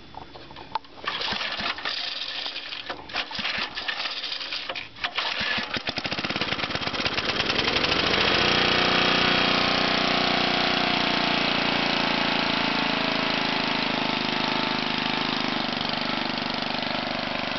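Cold start of a 1978 JC Penney rototiller's 5 hp Briggs & Stratton engine, pull-started on the manual choke after sitting about a month on old gas. It sputters and fires unevenly for several seconds, catches about six seconds in, then runs steadily.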